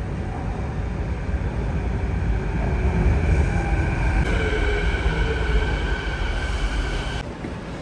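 Canada Line SkyTrain train pulling into the station, a heavy rumble of wheels on rail. A steady high whine joins about four seconds in as the cars slide past and slow, and cuts off shortly before the end.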